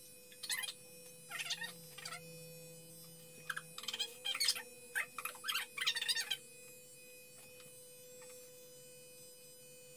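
Corded electric hair clippers running with a steady hum, with crackly bursts as the blades cut through hair, most densely in the middle of the stretch.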